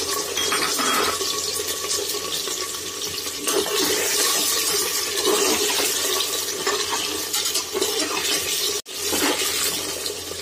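Pieces of taro root (arbi) frying in hot mustard oil in an aluminium pressure-cooker pot: a steady, loud sizzle of the oil bubbling around the freshly added pieces, breaking off for an instant near nine seconds in.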